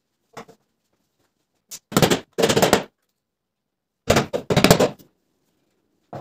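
Claw hammer striking in two quick runs of rapid blows, about two seconds in and again about four seconds in, with a single faint knock near the start and another at the end.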